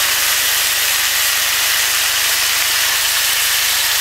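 Fat and juices of a whole pig sizzling on the hot top of a wood stove: a steady, even hiss.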